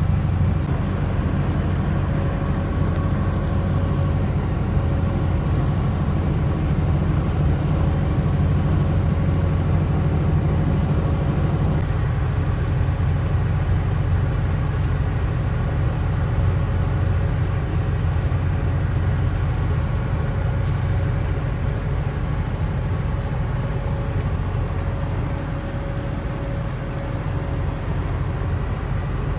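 Steady engine and road noise heard inside a moving vehicle at cruising speed: a continuous low rumble with a faint steady whine and no changes in speed.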